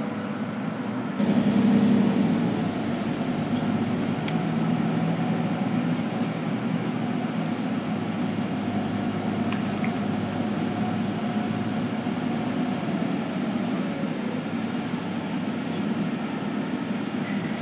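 A bus driving along, heard from inside its cabin: a steady engine hum and road rumble with a faint whine that rises and falls. It gets louder about a second in.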